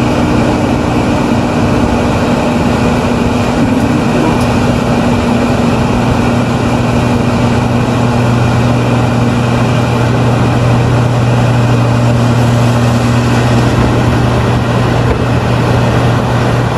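Diesel engine of a heavy earthmoving machine running steadily: a loud, constant drone with a low hum that grows stronger about halfway through.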